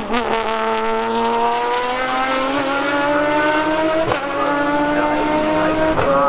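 Aston Martin Vantage GT race car's engine accelerating hard, its note climbing steadily through the gear, with an upshift about four seconds in and another near the end. A few sharp exhaust crackles come right at the start.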